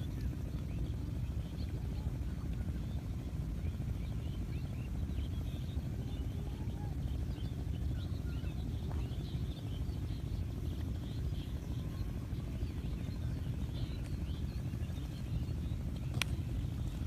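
Small birds chirping over a steady low rumble, with a single sharp click near the end.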